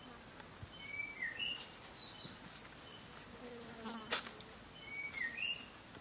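Forest ambience: a bird sings the same short phrase of chirps and whistles twice, about a second in and again near the end. Around the middle an insect buzzes briefly, and there is one sharp click.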